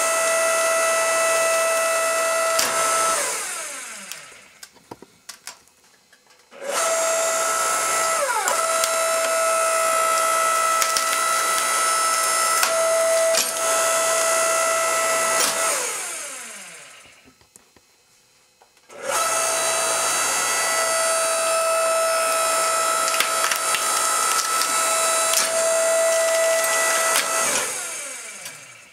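Electric motor of a shoe-crushing machine running with a steady whine while its steel wedge presses into a leather boot. Three times the whine falls in pitch and dies away, and after a pause of a few seconds the motor starts up again. A few sharp cracks come while it runs.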